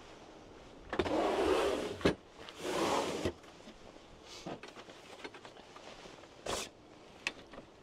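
Folding beach chairs being handled and stowed in a campervan's rear storage compartment: a scraping rustle lasting about a second, a sharp click, a second scrape just before three seconds, then a short scrape and a few light clicks later on.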